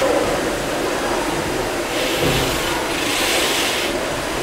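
Gimson steam beam engines running together: a steady mechanical clatter over a low rumble, with a rush of hiss that swells about two seconds in and fades near the end.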